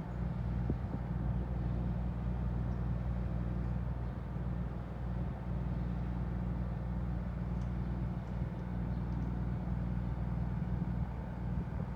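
Ferry's engines running, a steady low drone.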